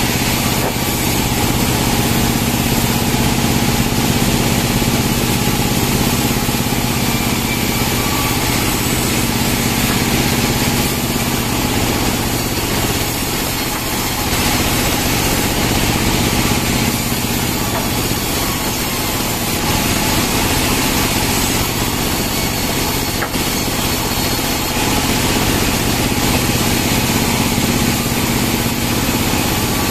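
Bandsaw mill running steadily and loudly as Merkus pine logs are fed through it and sawn into boards.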